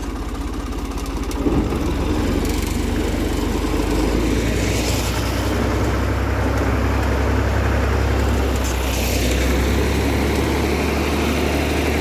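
Ford farm tractor's engine running steadily while the tractor manoeuvres, with a single knock about a second and a half in, after which the engine gets a little louder.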